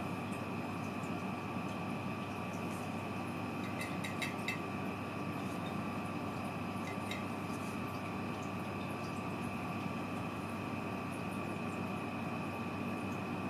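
Steady background hiss with a faint high hum; about four seconds in, a quick cluster of light clinks as the glass vase is bumped, and one more near seven seconds.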